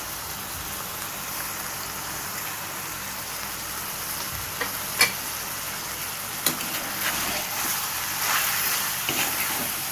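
Chicken and onion-tomato masala sizzling in a frying pan, a steady frying hiss. A few sharp clicks come about five and six and a half seconds in, and there are louder stirring sounds in the last few seconds.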